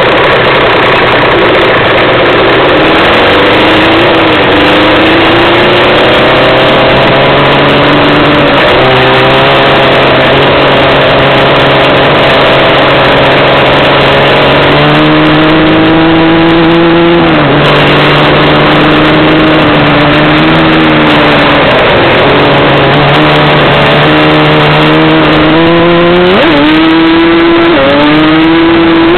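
Stock Yamaha Banshee ATV's twin-cylinder two-stroke engine under hard acceleration on a ride. The pitch climbs and drops sharply at the gear changes, about 9 and 17 seconds in, with a sharp rise near the end.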